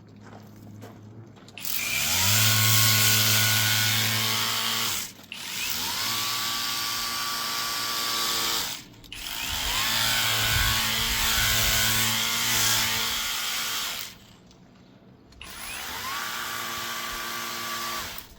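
Electric pressure washer running in four bursts of a few seconds each as the trigger is squeezed and released, its motor spinning up with a short rising whine each time, and the water jet hissing as it sprays the mini-split's outdoor coil.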